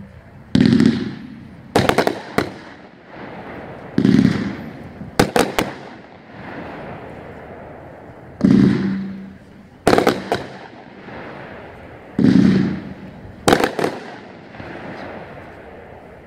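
Winda 'Neon Blast' 500-gram fireworks cake firing four shots, roughly every four seconds. Each shot is a dull thump as it leaves the tube, followed about a second later by sharp bangs as it breaks overhead.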